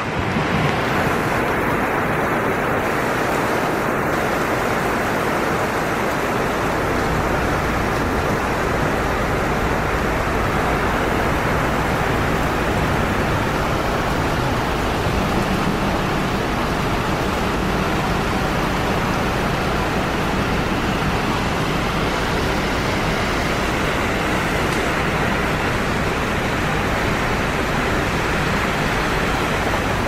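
Heavy typhoon rain pouring steadily onto paved road and pavement: a dense, even hiss that stays at the same level throughout.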